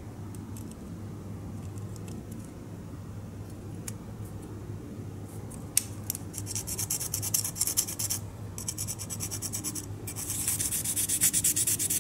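A small sanding block rubbed rapidly back and forth on a model car's body shell. It starts with a few light handling clicks, then from about six seconds in comes a fast, even rasping that stops briefly twice and gets louder and denser near the end.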